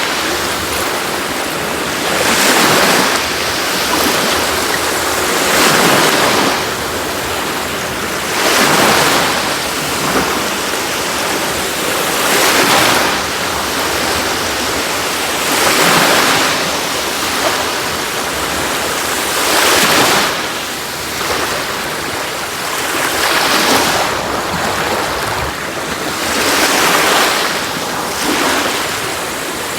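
Sea waves breaking and washing up the shore, one surge of surf about every three to four seconds, each swelling and fading away.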